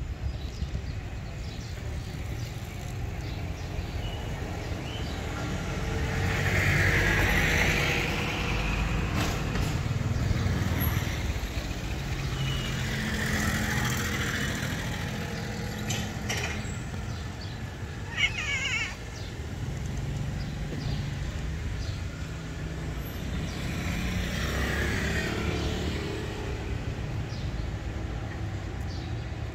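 Road traffic: motor vehicles going past, a low rumble that swells and fades about three times, with one short sharp high sound about eighteen seconds in.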